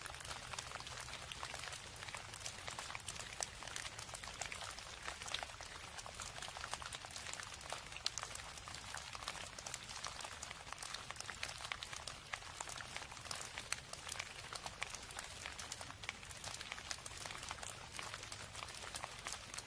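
Steady rain: a dense, even patter of many small drop impacts.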